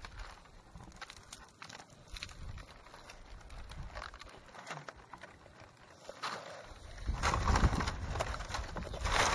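Dry palm fronds rustling and crackling under hands moving over them, with scattered light clicks. About seven seconds in, wind buffets the microphone with a low rumble.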